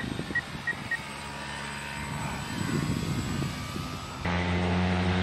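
Twin brushless electric motors (DXW 3536, 1200 kV) and propellers of a large foam RC PBY Catalina model in flight, giving a steady propeller hum. About four seconds in, the sound turns suddenly louder and deeper into a steady drone.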